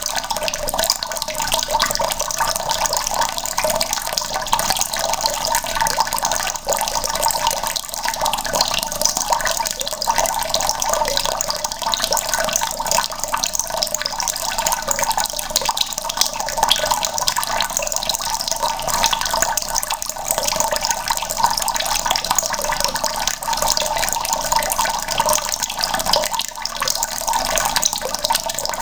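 Tap water running in a steady stream into a bucket, splashing continuously without a break.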